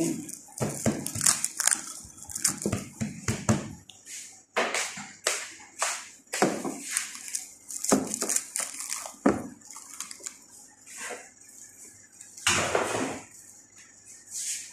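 Irregular clicks, knocks and crinkling rustles of things being handled, with one longer rustle near the end.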